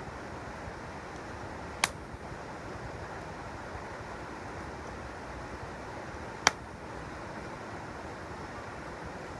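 Mountain stream rushing steadily, with two sharp pops from a wood campfire, one about two seconds in and another past six seconds.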